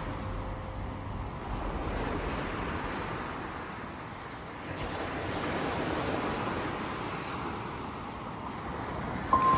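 Small sea waves washing onto a sandy beach: a steady rush of surf that swells and eases every few seconds. A held musical note comes in near the end.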